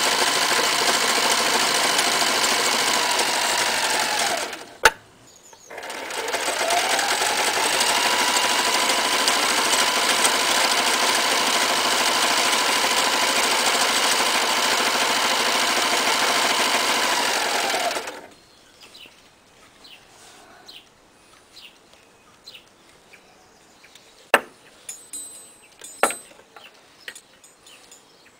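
Toyota 9060 electric sewing machine running at full speed, stitching a zigzag through leather. About five seconds in, its motor winds down to a stop with a sharp click, then speeds back up and runs steadily until about two-thirds of the way through, when it winds down and stops. A few light clicks and knocks follow.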